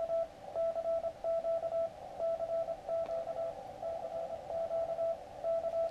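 Morse code (CW) tone from an Elecraft KX3 transceiver: a single steady pitch keyed on and off in dots and dashes, over a faint hiss. It is a CQ call that the radio is decoding.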